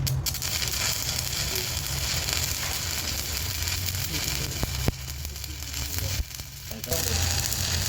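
Electric arc welding: a steady crackling sizzle over a low hum, with a sharp click about five seconds in. The sizzle breaks off for well under a second near six seconds and then starts again.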